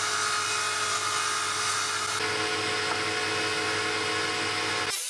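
Woodworking power tool running steadily: a high whine of steady tones over dense hiss. The sound changes abruptly about two seconds in and again near the end.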